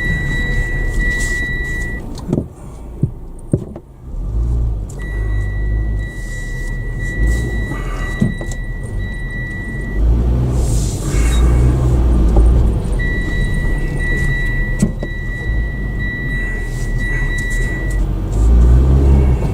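Car's low engine and road rumble heard from inside the cabin, with a steady high electronic beep tone sounding in three long stretches of a few seconds each, along with a few sharp clicks early on and a short hiss midway.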